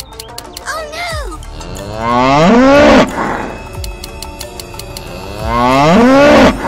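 A cow mooing twice, each moo about a second long and rising then falling in pitch, over light background music.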